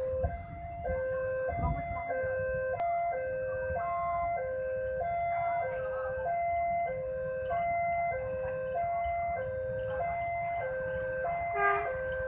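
Railway level crossing warning alarm sounding its two-tone signal, a higher and a lower note taking turns about every half second, over a steady low rumble. The alarm signals that a train is approaching.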